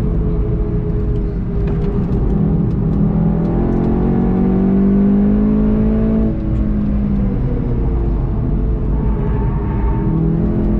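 VW Golf 7.5 GTI TCR's turbocharged 2.0-litre four-cylinder engine, heard on board, pulling hard with its note rising steadily. About six seconds in, the note briefly drops and then climbs again, and the car brakes near the end.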